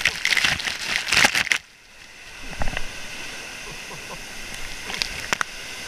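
Water rushing and splashing around a rider sliding on a tube down a funnel water slide: loud splashing for about the first second and a half, then it drops suddenly to a steady hiss of water running over the slide, with two short sharp splashes near the end.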